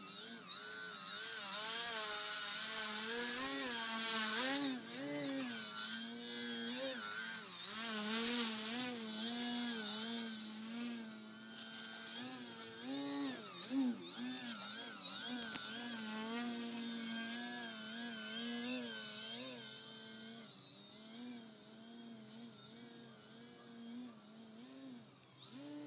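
Radio-controlled aerobatic model airplane's motor and propeller whining, its pitch rising and falling constantly as the throttle is worked to hold the plane in a nose-up prop-hang hover. It grows quieter over the last several seconds.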